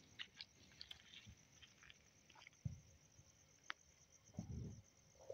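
Near silence with faint scattered ticks and scuffs of footsteps on dirt ground, a soft low thump about two and a half seconds in and a brief low rumble near the end.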